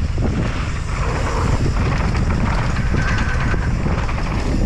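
Wind buffeting the camera microphone on a fast mountain-bike descent, with the tyres running over loose dirt and the bike rattling over the bumps.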